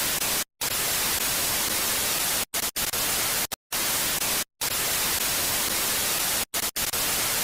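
Loud television static hiss that cuts out abruptly into silence several times, so it comes in stretches of different lengths: a glitch effect.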